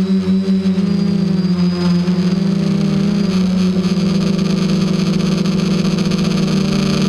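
FPV quadcopter's electric motors and propellers buzzing loudly as heard from its onboard camera, the pitch dipping and rising a few times with throttle changes.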